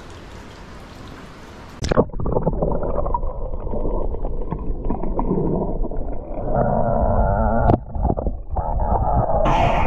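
A faint hiss of cave water, then a splash about two seconds in as the microphone goes under. After that comes muffled underwater rumbling and bubbling from a diver swimming through a flooded cave passage. Near the end the sound turns brighter and splashier.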